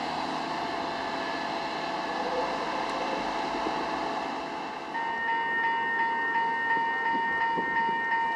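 Hi-rail maintenance truck's engine running steadily. About five seconds in, after a cut, a railroad grade-crossing warning bell starts ringing rapidly and steadily, the signal that a train is approaching.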